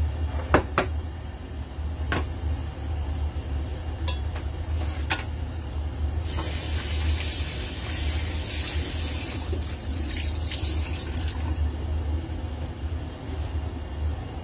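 Gas stove burner heating an empty stainless-steel wok, with a steady low rumble. A few sharp metallic taps come in the first five seconds, and a hiss runs from about six to eleven seconds in.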